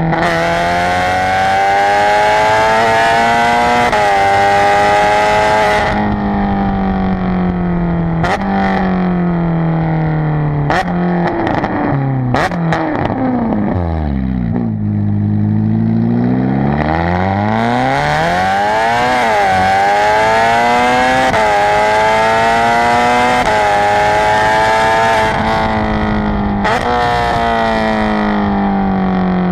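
Ferrari California's V8 through an Armytrix valvetronic exhaust, pulling hard in long rising sweeps of engine pitch that drop at each gear change. As the revs fall about a third of the way in, there are a few sharp exhaust pops; the car then slows to a low growl near the middle and pulls away again.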